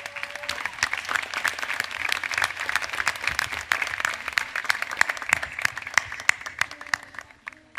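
Large audience applauding, the clapping thinning out and fading away near the end.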